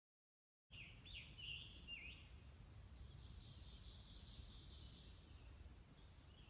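Songbirds calling in the woods, starting abruptly under a second in. First come a few short swooping whistled notes, then about three seconds in a rapid trill of evenly repeated high notes lasting about two seconds, all faint over a low steady rumble.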